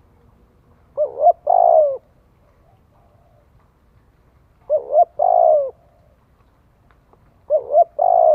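Spotted dove cooing: three calls about three seconds apart, each two short rising notes followed by a longer note that falls away at its end.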